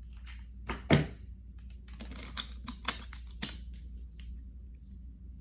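Clicks and taps of wooden popsicle sticks being handled and glued together on a tabletop. The loudest knock comes about a second in, and a run of quicker clicks follows between about two and three and a half seconds.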